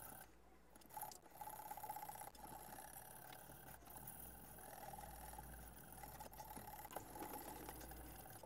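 Faint scraping of a 150-grit sharpening stone stroked along a steel knife edge in a fixed-angle sharpener, grinding out a chip and raising a burr. It sets in about a second in and continues to the end.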